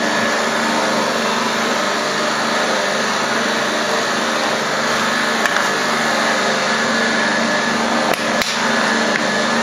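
Electric stand mixer's motor running steadily with a constant hum, its flat beater turning dry flour and crumbled yeast before the water goes in. A couple of light knocks about eight seconds in.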